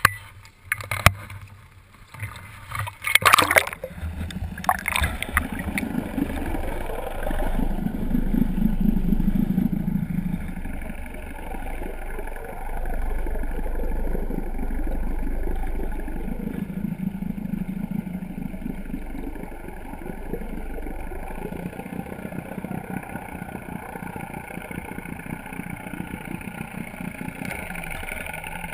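A few sharp knocks and clatter in the first few seconds, then a motorboat running with water rushing past, the low rumble swelling and easing several times.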